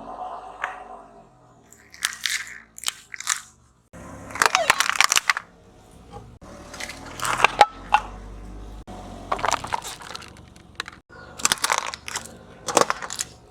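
Objects being crushed under a car tyre: a series of crunching, crackling bursts, some short and some lasting about a second, with a low rumble between some of them.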